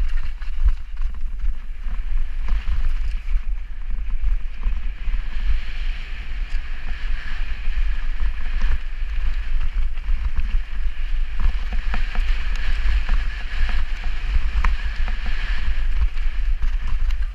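Mountain bike descending a muddy dirt trail at speed: tyres rolling over the dirt, with frequent short knocks and rattles from the bike, under a heavy rumble of wind buffeting the microphone.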